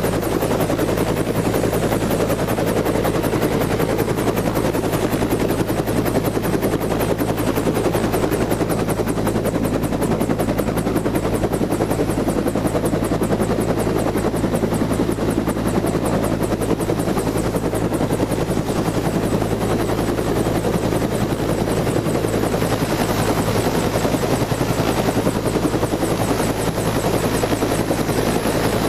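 Landed helicopter running close by, its engine and rotor making a loud steady noise with a fast, even pulsing beat.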